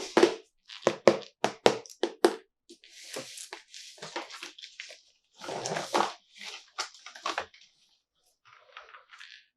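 Fingertips tapping on a plastic toy and its packaging: a quick run of about seven taps, then rustling and crinkling as it is handled, two more taps and faint rustling near the end.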